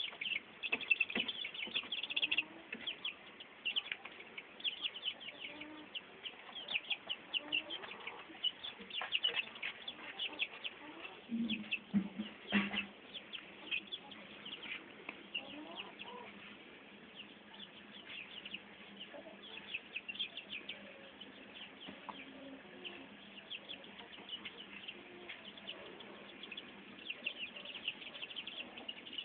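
Young chicks peeping: a steady, dense run of short high peeps, with a few lower, softer calls among them and a brief knock about twelve seconds in.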